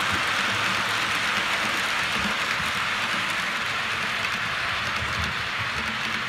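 Model railway freight train, a locomotive hauling container wagons, rolling along the track: a steady rushing noise of wheels on rail with light irregular knocks, slowly getting quieter as the train moves away.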